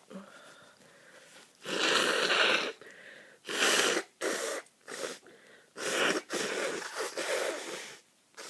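A person with a flu-blocked nose blowing it hard five times: a blow of about a second, three short ones, then a long blow of about two seconds near the end.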